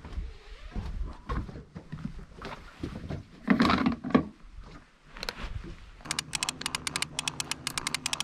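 Knocks and scrapes of gear being handled in an aluminium boat, then from about six seconds in a conventional fishing reel being cranked, clicking fast and evenly, about seven clicks a second, as line is reeled in on a hooked fish.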